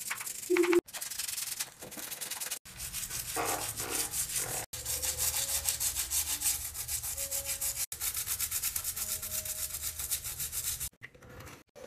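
Toothbrush scrubbing tile grout coated in gel cleaner on a shower floor, in rapid, even back-and-forth strokes.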